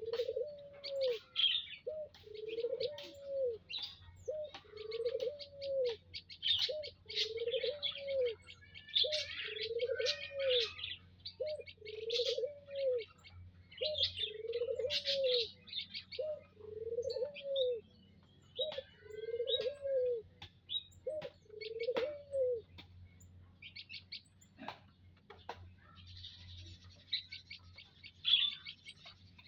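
A dove cooing, a short rising-and-falling coo about once a second, stopping after about twenty seconds. Over it, many small munias chirp and twitter in high, rapid calls.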